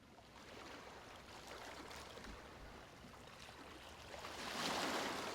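Ocean waves washing onto a beach: a soft, even hiss that builds and swells to its loudest about four and a half seconds in.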